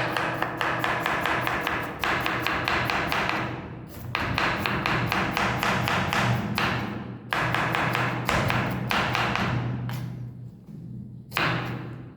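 Kitchen knife chopping rapidly on a cutting board: fast, even runs of knocks, each run a few seconds long, with short pauses between them and a last brief run near the end.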